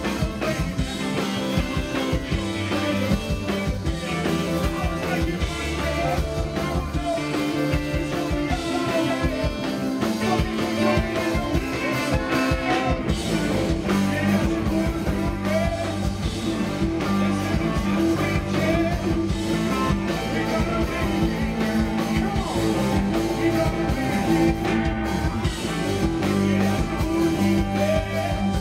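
A rock band playing live through a stage PA: a singer over electric guitar, keyboards, drums and saxophone.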